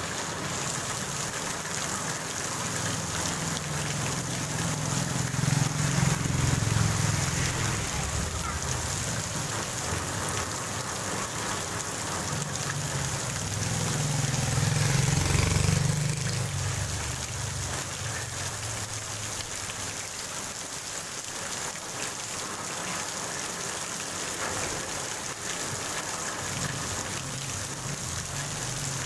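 Heavy rain pouring steadily onto a paved street. A low rumble swells up twice, the second time as a motorbike rides past through the water.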